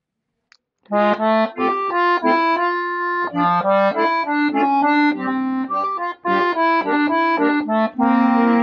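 Piano accordion starting to play about a second in, a run of quickly changing notes over lower held tones.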